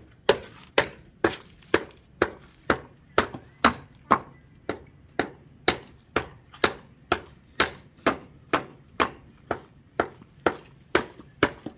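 Hand tool chopping into the wood of a saddle tree as it is shaped: sharp blows, evenly about two a second.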